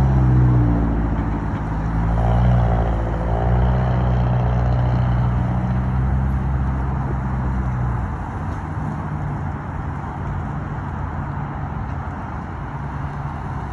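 Road traffic: car engines running and passing, with rising and falling engine tones in the first few seconds. It eases to a quieter steady rumble after about eight seconds.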